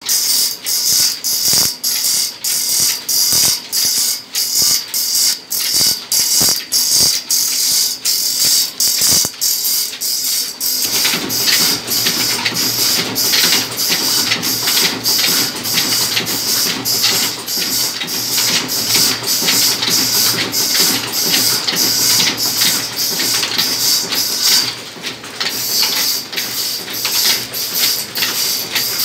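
Stationary oil engine with a large flywheel running at a slow, even beat of about three knocks a second, together with its belt-driven line shafts and pulleys. The sound grows fuller and deeper about eleven seconds in.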